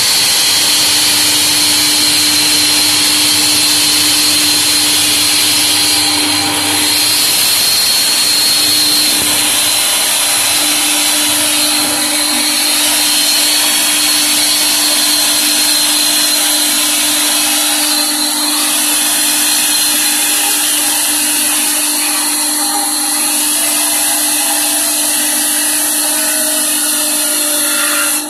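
Large vertical band saw running and cutting a long wooden plank lengthwise: a loud, steady whirring noise with a high whine and a low hum.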